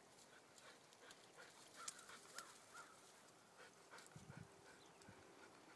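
Near silence with faint dog sounds: scattered soft ticks and a brief low sound about four seconds in.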